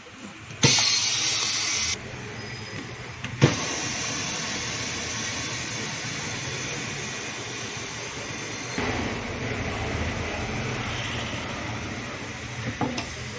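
A loud burst of hissing air for about a second, then a sharp click and a steady whooshing machine noise. A faint click comes near the end.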